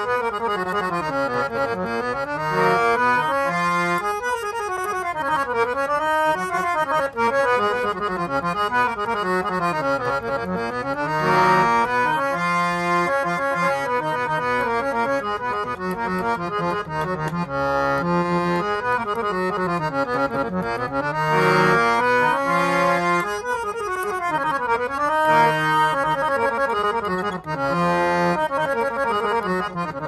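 Yamuna harmonium played by hand with bellows pumped: its reeds sound continuously as runs of notes sweep down and back up the keyboard again and again.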